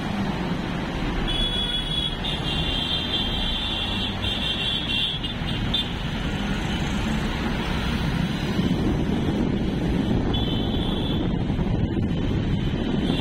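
Road traffic heard from a moving double-decker bus: a steady rumble of engines and tyres, with a shrill vehicle horn sounding on and off from about a second in to about six seconds, and briefly again near eleven seconds.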